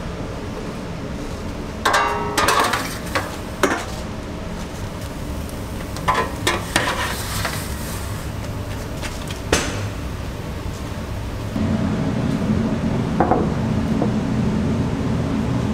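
Metal pizza pans and oven trays clattering and scraping in several short bouts, over a steady low kitchen hum that grows louder about two-thirds of the way through.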